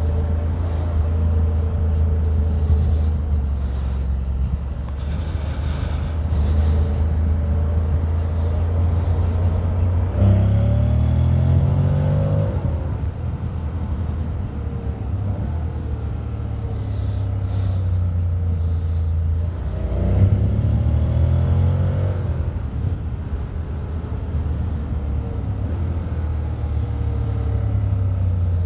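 Honda X-ADV 750's parallel-twin engine and exhaust running steadily under way. Twice, about ten seconds in and again about twenty seconds in, the pitch rises for two or three seconds as the bike accelerates.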